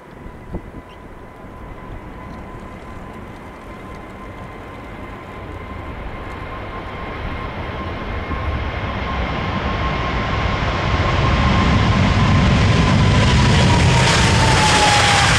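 Jet airliner's engines on a takeoff run and climb-out, growing steadily louder as it approaches, with a thin whining tone that drops in pitch near the end as the aircraft passes.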